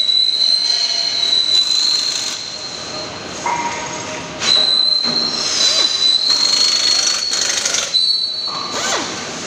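Pneumatic hand tool on a blue air hose running with a high, steady whine in three runs: one of about two and a half seconds, a second of about three seconds starting about four and a half seconds in, and a short one near the end.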